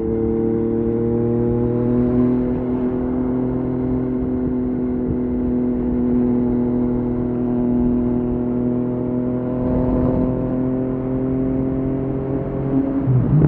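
Yamaha MT-09's three-cylinder engine through an Akrapovic exhaust, pulling at a steady, nearly constant pitch under way. About 13 seconds in the note breaks briefly and comes back at a different pitch, a gear change.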